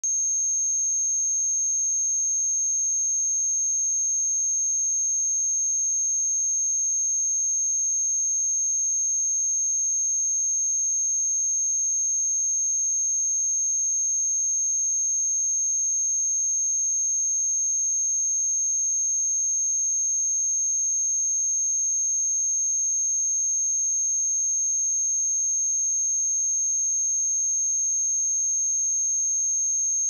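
A pure 6423 Hz sine-wave test tone: a single steady high-pitched whistle at constant loudness, with no other sound.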